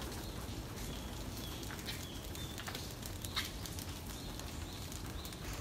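Steady low background hum with scattered faint clicks and a few short, high chirps.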